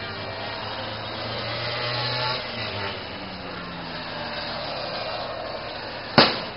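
A steady, dense noisy din, with one loud, sharp bang about six seconds in.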